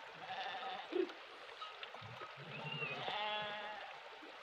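Sheep in a grazing flock bleating: a short bleat near the start, then a longer, louder bleat from about two and a half seconds in.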